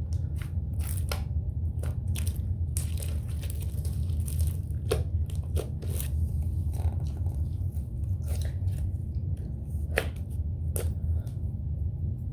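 Homemade slime being squished and stretched by hand, giving irregular sticky clicks and crackling pops, over a steady low hum.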